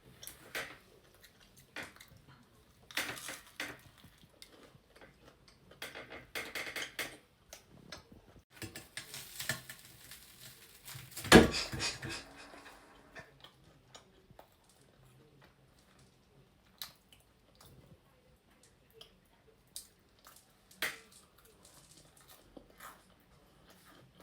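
Cutlery clinking and knocking against plates while people eat, in scattered short clicks, with one louder clatter about eleven seconds in.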